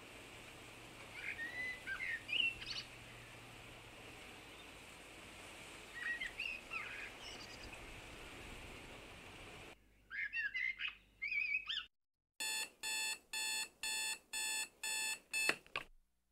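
Birds chirping over a faint steady hiss, then a digital alarm clock beeping in short, even beeps about twice a second for the last few seconds.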